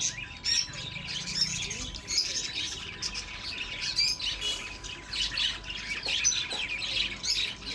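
Many small birds chirping at once, a dense run of short overlapping high calls, over a faint steady tone.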